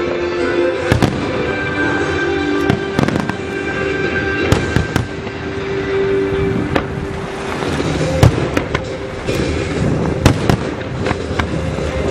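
Aerial fireworks shells bursting: a dozen or so sharp bangs at uneven intervals, over music with long held notes.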